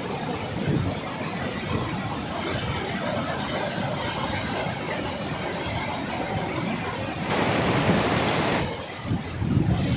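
Rushing water of a monsoon-fed waterfall: a steady, even rush of noise that grows louder for about a second and a half near the end.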